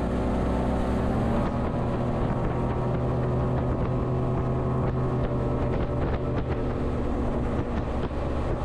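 A fishing boat's motor running steadily at speed, with a constant droning engine note and the rush of the hull through the water.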